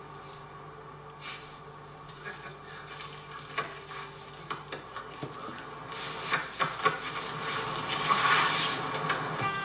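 Jackets rustling with a few soft pats and taps as two men embrace, heard through a television speaker. The rustling grows louder in the last few seconds, over a low steady hum in the first half.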